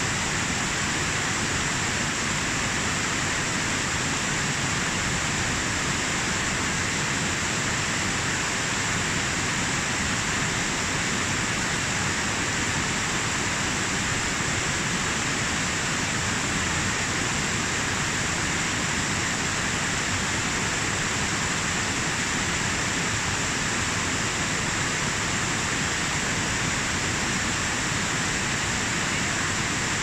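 Mountain cascade: white water tumbling over boulders in a steady, unbroken rush.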